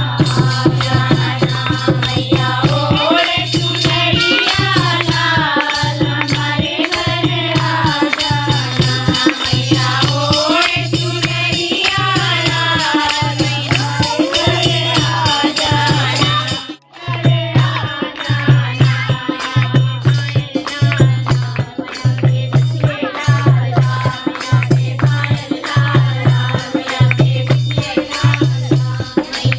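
A group of women singing a devotional bhajan together to a dholak hand drum, whose low strokes fall about once a second, with hand-clapping. The music breaks off briefly just past halfway and then carries on.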